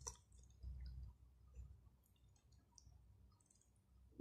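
Faint wet mouth clicks and smacks of biting into and chewing a soft ripe mango, with one sharper smack right at the start.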